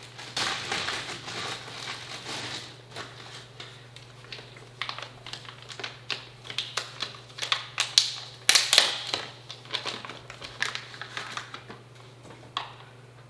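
Close-up handling noise of a bundled cable and its plastic wrapping: rustling at first, then a long run of irregular small clicks and crinkles as it is worked loose, over a steady low hum.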